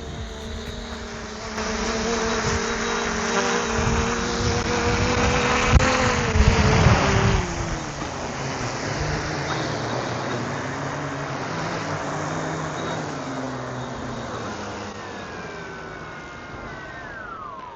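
Small quadcopter drone's propellers whining, the pitch wavering as the drone lurches about with a landing leg hanging half off, mixed with heavy wind-like rushing and rumbling that is loudest in the first half. Near the end the motor tones fall steadily in pitch as the propellers slow.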